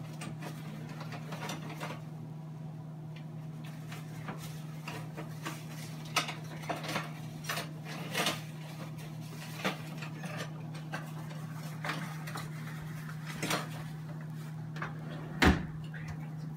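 Cutlery and kitchenware being handled at a kitchen counter: scattered clinks and knocks, the loudest a sharp knock near the end, over a steady low hum.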